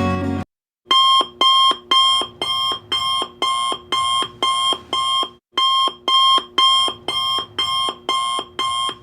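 Timer alarm going off: a run of identical electronic alarm-clock beeps, about two a second, with a brief gap about halfway. It starts just under a second in, right after the guitar background music stops.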